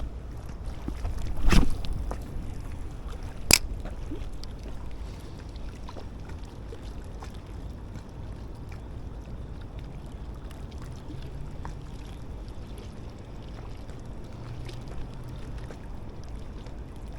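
Steady low outdoor rumble, with a loud whoosh about a second and a half in and a single sharp click about two seconds later.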